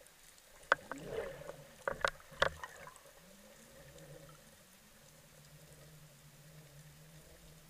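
Underwater sound through a camera housing: a handful of sharp knocks in the first two and a half seconds, then a steady low drone that comes in with a short upward glide and holds.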